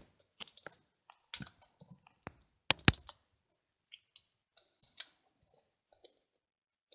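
Scattered light clicks and taps of fingers pressing a red cardstock poppy down onto foam adhesive dimensionals against the craft mat. Two sharper clicks come close together about three seconds in.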